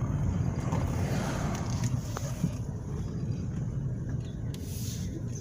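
Truck driving along: a steady low rumble of engine and road noise.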